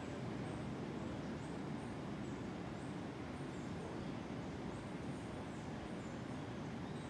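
Jungle ambience: a steady low rush, with faint short high chirps about every second.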